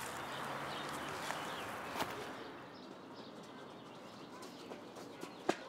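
Faint outdoor park ambience with distant bird calls, a single click about two seconds in, and a few footsteps near the end.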